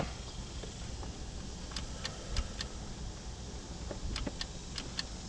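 Scattered light clicks and taps, a few at a time, from hands and tools working on the wiring, over a faint low hum.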